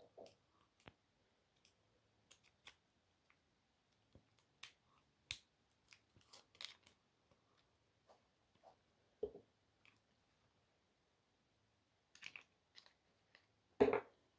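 Scattered light clicks and taps of small parts and tools being handled, with a louder knock about nine seconds in and the loudest one near the end.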